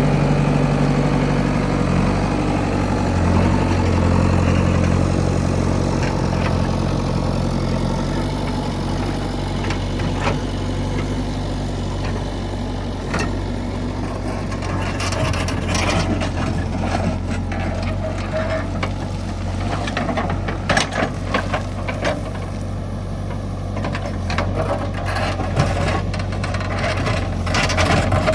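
Heavy machine's diesel engine running steadily, its pitch shifting a couple of times in the first several seconds. From about halfway on, a run of sharp knocks and clatters sounds over the engine.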